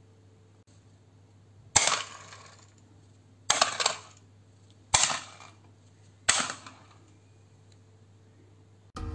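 Spring-loaded plastic toy bus garages triggered one after another: four sharp clacks about a second and a half apart, each followed by a short clatter that fades as a toy bus shoots out and rolls across the table.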